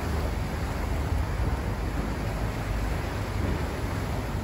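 Steady low rumble of a boat under way, with wind noise on the microphone.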